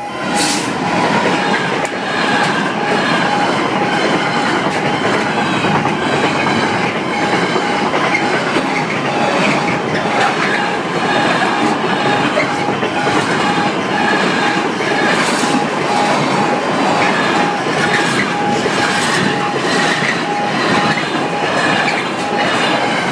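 Long freight train's wagons rolling past at close range, with steady wheel clatter over the rail joints and some wheel squeal. A pulsing level-crossing alarm tone sounds over it throughout.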